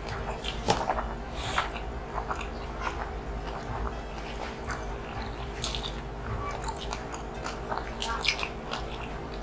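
Close-miked mukbang eating sounds: two people chewing and smacking their lips on mouthfuls of rice and lechon kawali (fried pork belly in coconut milk) eaten by hand, in irregular short clicks and smacks.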